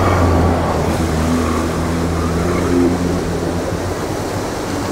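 Stock Lada Niva's 70-hp engine running under load as the car churns through a deep mud puddle, its tyres throwing mud and muddy water. The engine note stays steady, with slight rises and falls in pitch.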